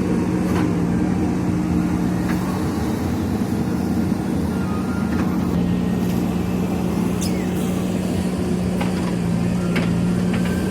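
JCB backhoe loader's diesel engine running steadily under work, with a constant low hum and a few faint clicks and clanks scattered through it.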